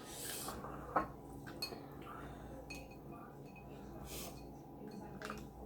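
Scattered light clicks and clinks of crab shell and utensils being handled over a plate, the sharpest about a second in, with a couple of brief rustles.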